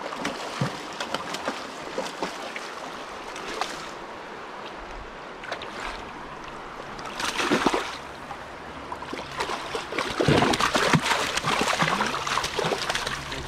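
Hooked pink salmon splashing at the river surface as it is played in, with a louder splash about seven seconds in and heavy splashing and thrashing from about ten seconds on as it is scooped into the landing net.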